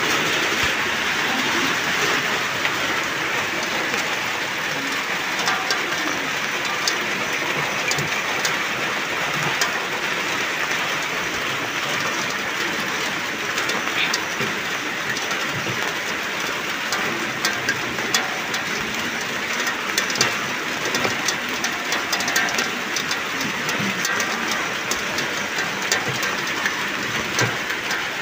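Steady rain falling, with many sharp drop ticks scattered through it.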